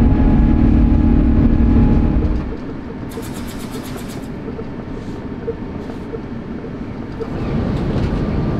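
Jet airliner cabin noise: a steady low engine rumble with a hum in it, loud for the first two seconds or so and then dropping to a quieter rumble. About three seconds in comes a short burst of rapid clicking.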